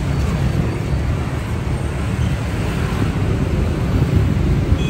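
Toyota FD25 forklift's four-cylinder diesel engine idling, a steady low rumble.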